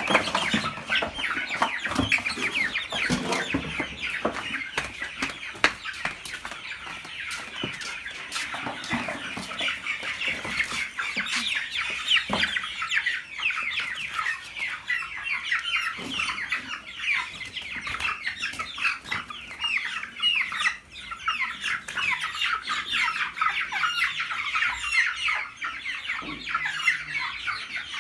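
A flock of chickens calling all at once, a dense stream of many overlapping short high peeps and clucks, with a few sharp knocks among them.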